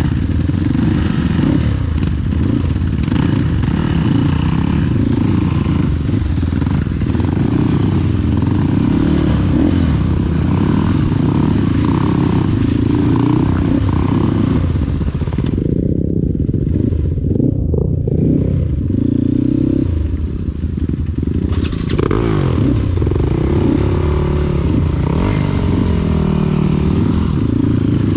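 Trail motorcycle engine revving unevenly, its pitch rising and falling with the throttle as it is ridden along a slippery trail. For a few seconds past the middle the sound goes dull as its higher part drops away.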